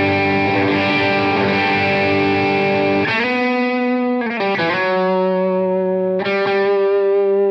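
Overdriven electric guitar played on a Lollar Jaguar-style bridge pickup through the Browne Protein overdrive pedal with its blue and green sides stacked, into a 100-watt plexi-style head and a G12H30 speaker. Dense chords for about three seconds, then a change of chords with quick pick scrapes, and chords left to ring out, struck again near the end.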